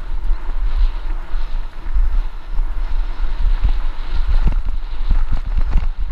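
Wind buffeting a helmet-camera microphone on a fast mountain-bike descent of a dirt trail, with the tyres running over the dirt. From about four and a half seconds in, quick knocks and rattles come from the bike jolting over bumps.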